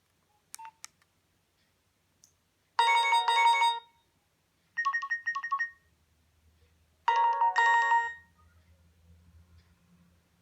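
Nokia 2610 mobile phone playing a ringtone: three short phrases of bright electronic tones, each about a second long and about a second apart. Two short clicks come just before them, near the start.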